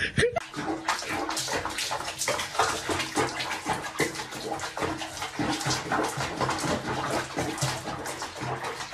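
Water sloshing and splashing in a basin of foamy bathwater with a cat sitting in it, in quick irregular splashes.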